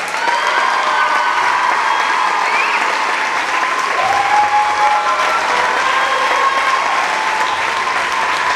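Sustained applause from a theatre audience and the dancers on stage, dense and steady, welcoming a teacher as she is called up.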